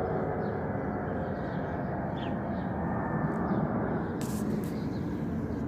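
Jet engines of a Boeing 757-200 freighter rumbling steadily as it flies past, with a faint whine in the first couple of seconds. About four seconds in, a hiss joins higher up.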